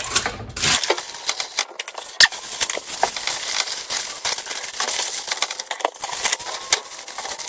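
Aluminum foil crinkling and crackling as it is folded and crimped around a rack of ribs on a baking sheet, with one sharper click about two seconds in.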